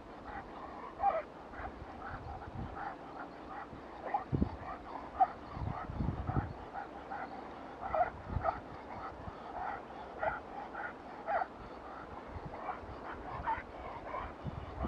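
A dog whimpering and yipping in short, repeated calls. A few low thumps come through in the middle.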